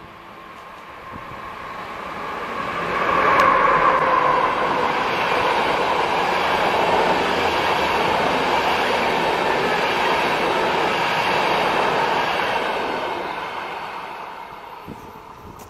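A České dráhy Siemens Vectron class 193 electric locomotive hauls a passenger train past at speed. The rolling noise swells to its loudest as the locomotive passes about three seconds in, holds steady while the coaches run by, and fades away near the end.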